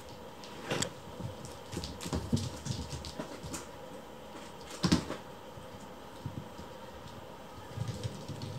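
Kittens tussling with a string toy: irregular light thumps, scuffles and paw scrabbling on the floor, with the loudest thump about five seconds in.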